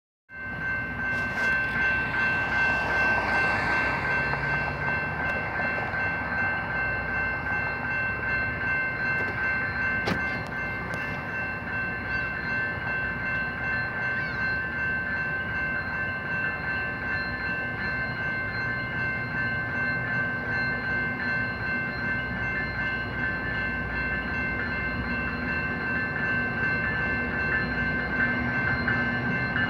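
Railroad grade-crossing warning bell ringing steadily while the crossing is activated, gates down and lights flashing. A low rumble builds toward the end.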